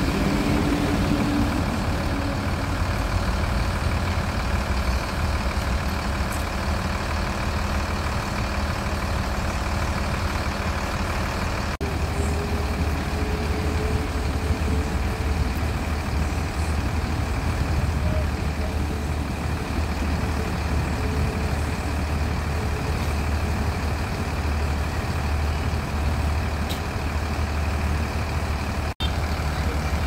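Mercedes-Benz intercity bus's diesel engine idling steadily with a deep, even rumble. The sound drops out for an instant twice, about twelve seconds in and near the end.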